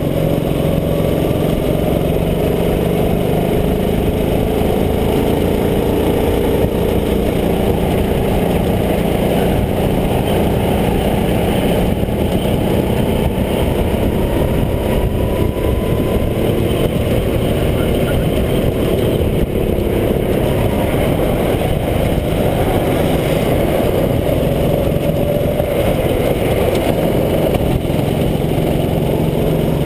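Racing kart's small petrol engine running hard, heard from on board the kart, its pitch slowly rising and falling as the kart slows into corners and accelerates out of them.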